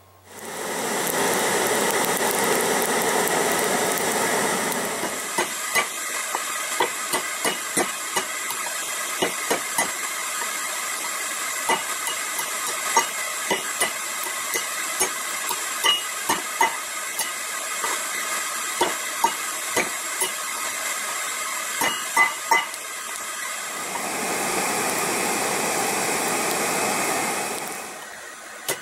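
A forge hissing steadily while it heats steel rebar. In the middle stretch comes a long run of sharp, uneven hammer strikes on the rebar against a steel rail anvil, about two a second, over a quieter hiss. The louder hiss returns near the end and then cuts off.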